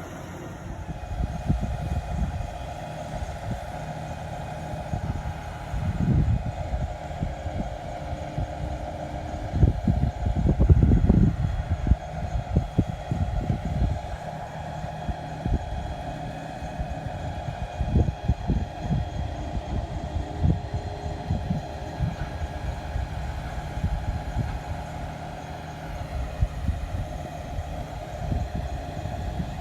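Large crane's engine running steadily while it lifts a pipe, with irregular low rumbles rising and falling, the loudest about ten to twelve seconds in.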